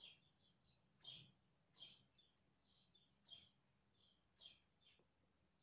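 Faint, repeated short chirps, about one a second, each falling quickly in pitch, with softer chirps in between: small birds calling.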